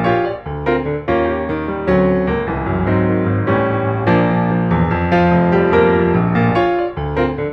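Background piano music: a gentle melody with chords, notes struck at a steady unhurried pace.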